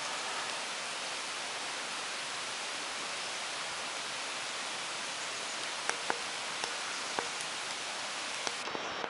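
Steady rain falling on wet road and forest foliage: an even, continuous hiss, with a few sharp ticks in the second half.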